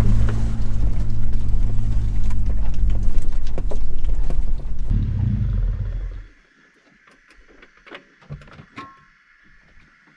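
Four-wheel-drive vehicle engine running with a low, steady growl, then switched off about six seconds in. After it stops there are a few faint clicks and knocks.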